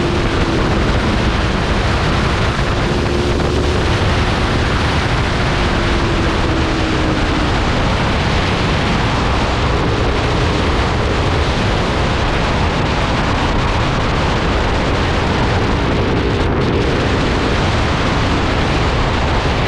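Aprilia 1100 V4 motorcycle riding at speed, heavy wind rushing over the microphone, with the V4 engine's steady note underneath that drifts slightly lower over the first several seconds.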